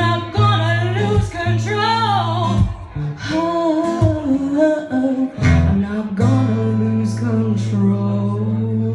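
Live singing with guitar accompaniment, the closing phrase of the song, ending on one long held note over a steady chord for the last few seconds.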